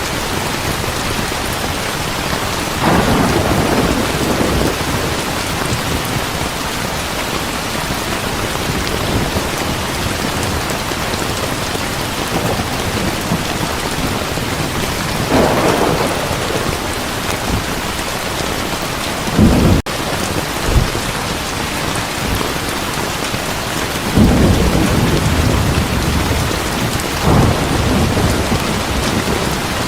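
Heavy rain falling steadily, with rolls of thunder rumbling up several times: near the start, about halfway, around twenty seconds in, and twice near the end.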